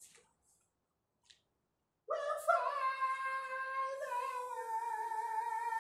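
A few short, faint spray-can hisses, then about two seconds in a voice sings one long note that wavers slightly and slides a little lower before breaking off at the end.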